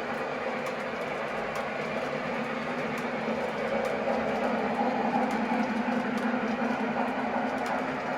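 O gauge model train running along its track, a steady motor hum with light rail clicks, growing louder about halfway through as it comes nearer.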